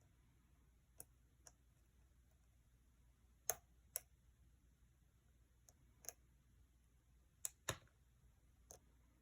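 Sharp little clicks from lock picks working in the keyway of a challenge lock, about nine at uneven intervals, the loudest pair about three and a half seconds in.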